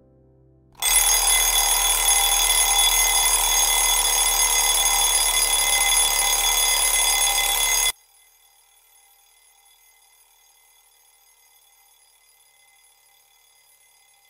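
A loud electric alarm bell rings continuously, starting sharply about a second in and cutting off suddenly after about seven seconds. Only a faint trace of the ringing remains after that.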